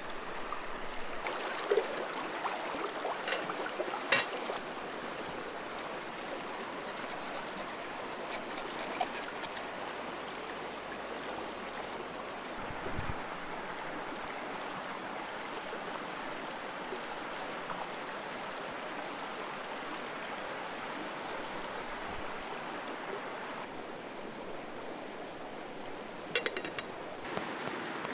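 Steady rushing of flowing water, with a few sharp clicks and knocks in the first few seconds and again near the end.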